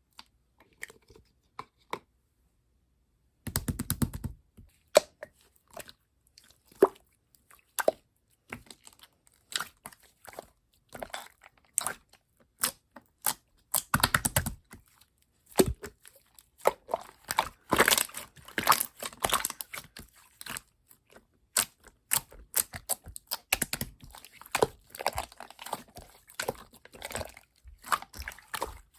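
Glossy chocolate-brown slime being squeezed and poked by hand, giving irregular sticky crackles and little pops. A few scattered clicks at first, then a denser run of crackling from about three and a half seconds in.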